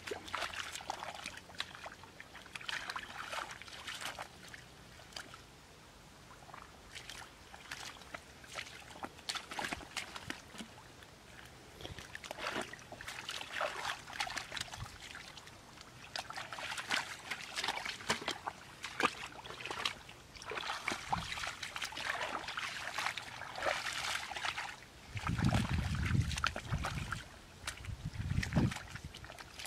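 Hands and feet sloshing and squelching through shallow muddy water, with irregular small splashes and drips, as fish are groped for by hand in the mud. Near the end come two low rumbles.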